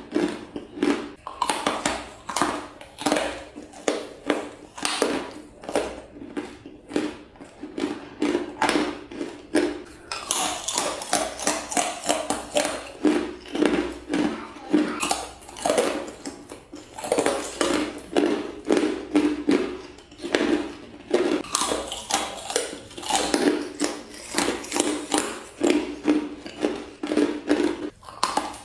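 Frozen matcha green-tea ice being bitten and chewed: repeated crunches between the teeth, about one or two a second, with little pause.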